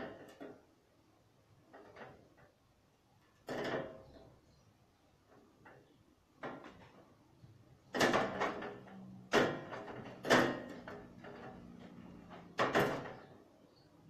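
A string of sharp knocks and bangs, louder and closer together in the second half, like doors or drawers being handled. A low steady hum runs under the later knocks.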